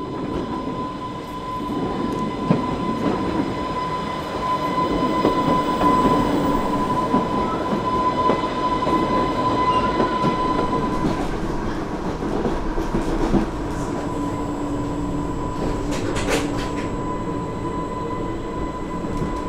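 Island Line Class 484 electric train running along the track: a steady rumble of wheels on rail under a constant whine. A lower hum joins about halfway through, and there are a couple of sharp knocks from the track.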